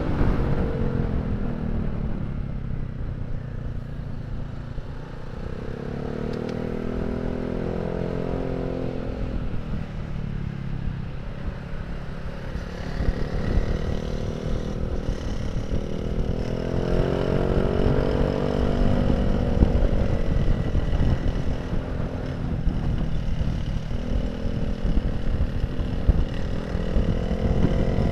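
Honda Vario scooter's single-cylinder engine running through a cheap aftermarket racing silencer while riding. Its pitch rises and falls several times as the throttle is opened and eased, over wind rumble on the microphone.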